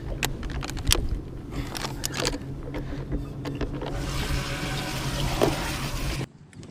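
Water splashing and pouring in a boat, with a few sharp knocks against the hull and a steady low hum underneath. The rush of water is strongest over the last couple of seconds and stops suddenly near the end.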